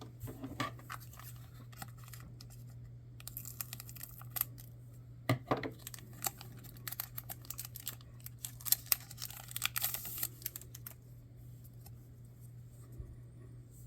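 Trading cards and their pack wrapper being handled: rustling, crinkling and small card clicks, in busier bursts about four and nine to ten seconds in, over a low steady hum.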